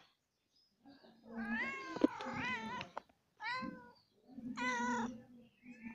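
A cat meowing three times: a long, wavering meow about a second in, then two shorter meows. A brief sharp click sounds during the first meow.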